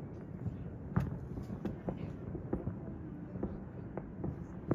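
Distant fireworks popping irregularly, about a dozen sharp cracks, the loudest about a second in and near the end, over a steady low rumble.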